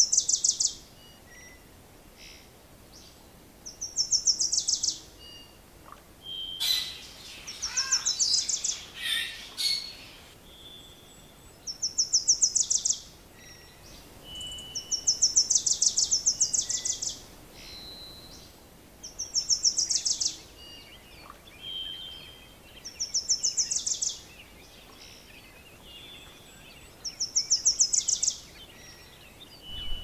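Songbirds singing: one bird repeats a short, rapid, high-pitched run of notes about every three to four seconds, with other birds' shorter calls in between and a busier patch of calling about seven to ten seconds in.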